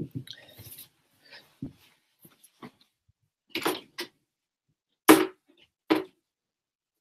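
Scattered knocks, clicks and rustles from someone moving about and handling things, about eight in all, the loudest a short thump about five seconds in.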